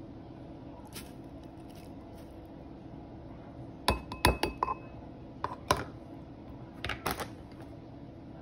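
A plastic food container knocking against a ceramic bowl as it is tipped out, making sharp clinks and knocks in three short clusters. The clusters come about four seconds in, about five and a half seconds in, and about seven seconds in.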